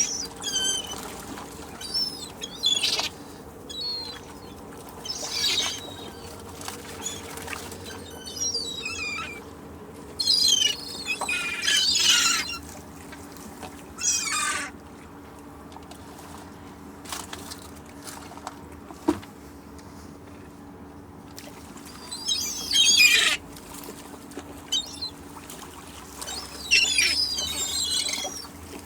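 Seagulls calling in repeated short bursts of high, warbling cries, a second or two apart.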